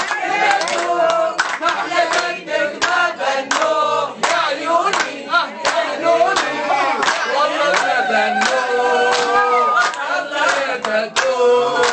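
Several people singing a Tunisian song together, with hands clapping along in a steady beat.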